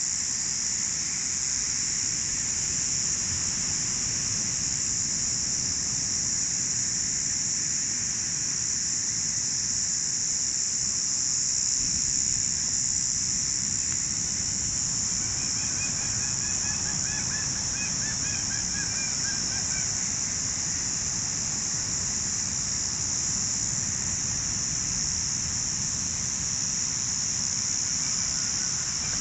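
Steady, high-pitched insect chorus that drones without a break. About halfway through, a bird gives a run of rapid chirping calls for several seconds.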